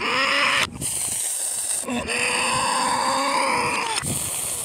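A voice making long, held non-speech sounds with a hiss over them, in several stretches broken by short pauses.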